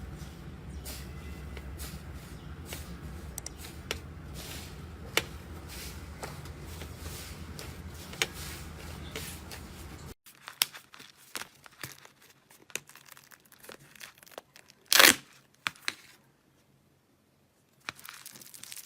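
Slime being handled and stretched, giving sticky crackling and tearing-like clicks. For about the first ten seconds the crackles sit over a steady low hum. After an abrupt change they come sparser, with one loud burst about fifteen seconds in and a brief quiet gap near the end.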